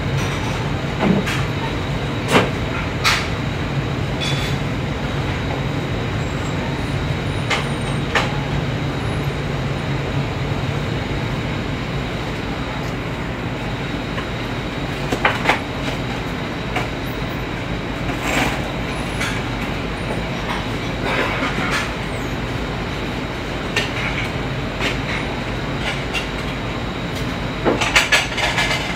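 Busy commercial kitchen: a steady drone of ventilation and cooking equipment, with scattered clinks and clatters of plates and cookware.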